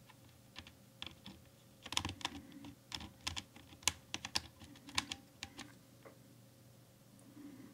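Mechanical keyboard Blue (clicky) switch being pressed over and over as Vaseline lube is worked into it to dampen its click: irregular sharp clicks, thickest in a run through the middle.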